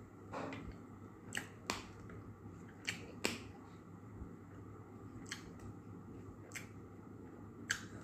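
Close-up eating sounds from eating with the fingers: about eight short, sharp clicks and smacks at uneven intervals, over a low room hum.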